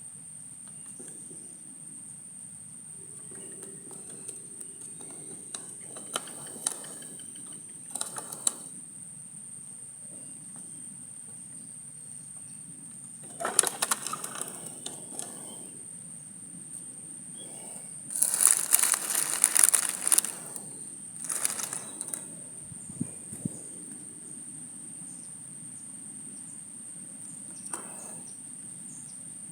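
Steady high-pitched insect trill, with loud bursts of rustling or flapping: one about a third of the way in and a longer one past halfway, plus a few scattered clicks.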